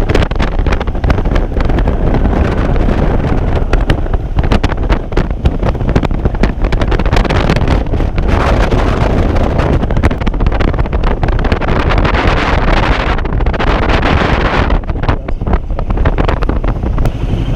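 Wind buffeting the microphone on a moving motorcycle, loud and gusty over a steady low rumble, swelling a couple of times.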